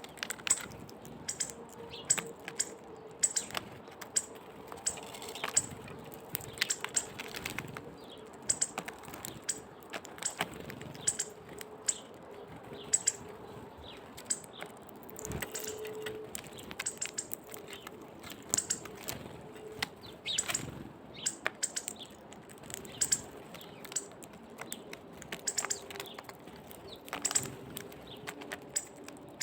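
Small birds such as nuthatches and hawfinches feeding, making irregular sharp taps and clicks as they peck and crack seeds, with brief wing flutters and short high chirps.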